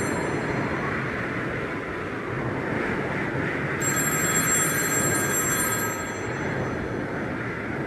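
Telephone bell ringing in a ring about two seconds long, from about four seconds in, over a steady rushing noise; a previous ring ends just as this stretch begins.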